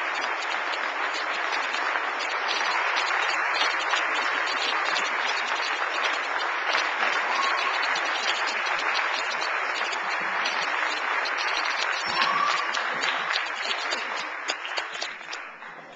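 Audience applauding: dense, steady clapping that thins out and dies away over the last couple of seconds.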